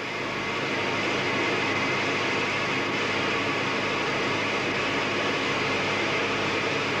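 Steady cockpit noise inside a Tupolev Tu-22 bomber: an even rushing hiss with a faint hum beneath, swelling slightly in the first second and then holding level.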